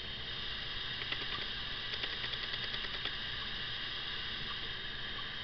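Camcorder lens zoom motor: faint mechanical ticking for a couple of seconds over a steady high hiss.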